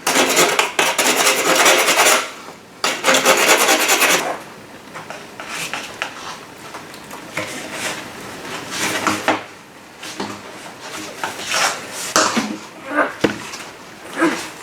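Hand rasp filing down the end of a PVC pipe in repeated rough strokes to shrink it to fit a vacuum hose. The strokes are loud for the first four seconds or so, then lighter and more irregular.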